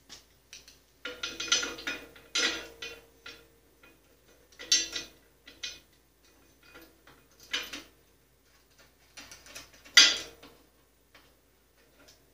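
Metal parts and a hand tool clinking and rattling on bandsaw hardware in irregular bursts of sharp clicks, the loudest about ten seconds in.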